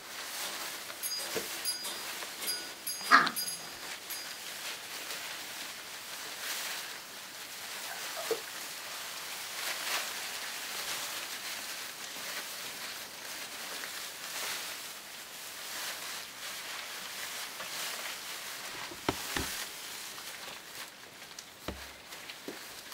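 Three-week-old Old English Sheepdog puppies playing in shredded-paper bedding: steady rustling and scuffling of the paper, with one sharp falling yelp about three seconds in and a few shorter squeaks later.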